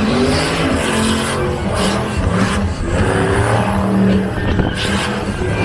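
Drift car engine revving hard at high rpm, rising and falling, as the car slides with its tyres squealing.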